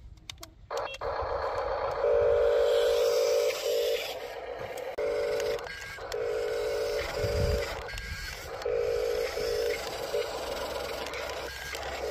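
Electric motors and plastic gearing of a radio-controlled toy construction vehicle whining in repeated short spurts, starting and stopping every second or so, with gear rattle above the whine. A dull knock comes about seven and a half seconds in.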